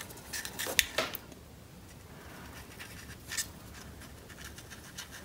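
Felt-tip marker drawing on a paper puppet, a faint scratching of the tip on paper. A few sharp clicks and taps from handling the pen and paper come in the first second or so, and another just past three seconds in.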